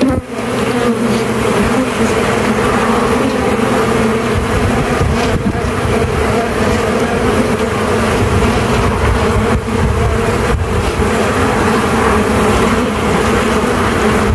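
A mass of honey bees (Apis mellifera) buzzing, a steady hum from a disturbed colony opened up for transfer to a new hive box. Low wind rumble on the microphone joins from about four seconds in.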